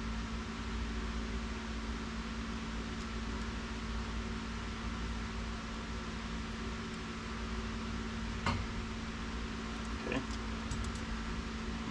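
Steady background machine hum with a few level tones, like a running fan. Two light taps about eight and a half and ten seconds in, as the kick panel is handled.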